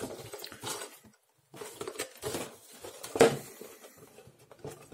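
A cardboard model-kit box being turned over in the hands and set down on the workbench: irregular rustling and light knocks, the loudest knock a little past three seconds in.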